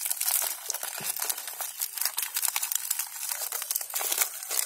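Plastic biscuit-packet wrappers crinkling and tearing as they are pulled open by hand, a continuous run of sharp crackles.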